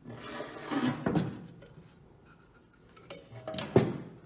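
Aluminium Honda CBX engine case being handled and turned over on a workbench: metal clunks and scraping over the first second and a half, then a sharp knock near the end, the loudest sound.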